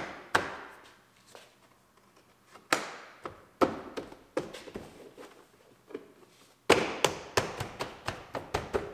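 Plastic retaining clips of a 2019 Ford Explorer door trim panel snapping into the door as the panel is pressed and struck in by hand: scattered sharp snaps and thuds, then a quick run of them in the last two seconds.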